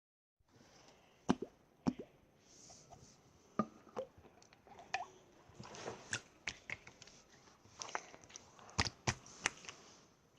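Clear slime being squished and pressed by hand, giving irregular wet pops and clicks.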